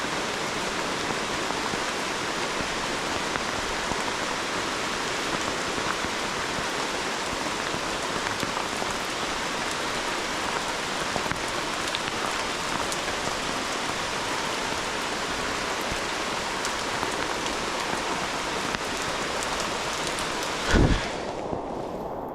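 Steady rain falling, an even hiss with scattered drop patters. Near the end a single loud thump, after which the sound turns duller.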